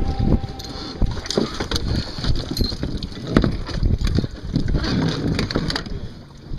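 Gusty wind buffeting the microphone, an uneven low rumble with scattered knocks and rustles.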